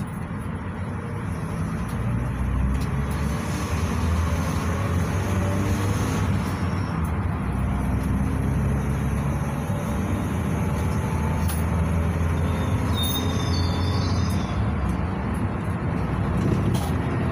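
Cabin noise inside a GAZelle Next minibus on the move: the low hum of its Evotech 2755A engine with tyre and road noise. It grows louder about two seconds in and then holds steady.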